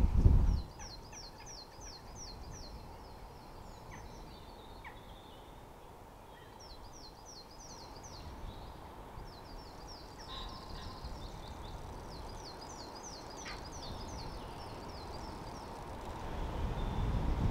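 A small songbird singing: three runs of quick, repeated high chirps separated by short pauses. Wind buffets the microphone briefly at the start and again near the end.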